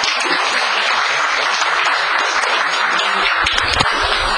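Audience applauding, steady and unbroken.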